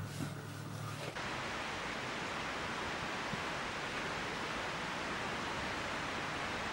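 Steady, even hiss of outdoor background noise, which starts abruptly about a second in as the closing notes of a song cut off.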